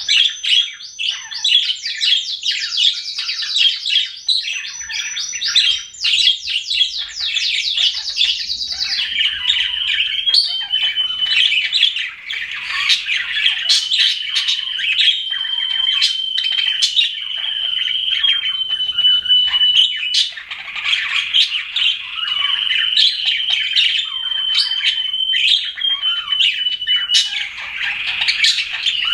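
Budgerigars (budgies) chirping and warbling. For the first several seconds there are rapid runs of repeated high chirps, then a continuous chattering warble with a long, steady high note held through most of the rest.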